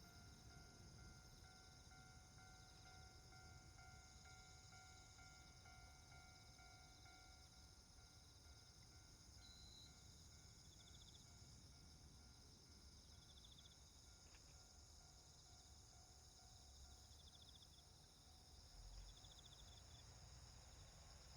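Near silence: faint insects trilling steadily, with short pulsed calls repeating now and then.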